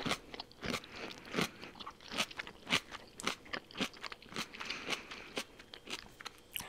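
Close-miked chewing of crunchy sauerkraut: an irregular run of crisp, squeaky crunches between the teeth.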